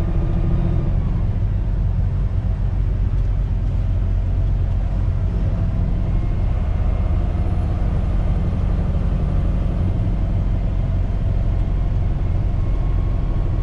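Semi-truck's diesel engine droning steadily with road noise, heard from inside the cab while cruising.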